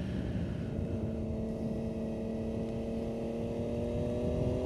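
Motorcycle engine running at a steady pitch through a bend, over a constant rush of wind noise at speed. The pitch rises slowly near the end as the bike accelerates onto the straight.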